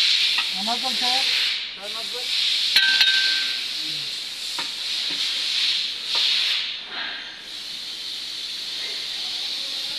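Steady hiss, with a few sharp clicks of metal on metal from the engine being worked into place on its chain hoist; the loudest click, about three seconds in, rings briefly.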